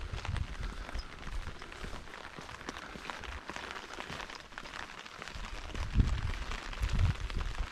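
Light rain pattering, with steady footsteps on a wet concrete footpath that grow heavier about six seconds in.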